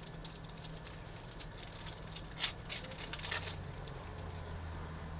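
2013-14 Panini Prizm hockey cards being handled and slid through a stack by hand: a run of quick papery clicks and rustles, loudest about halfway, dying out over the last second or two.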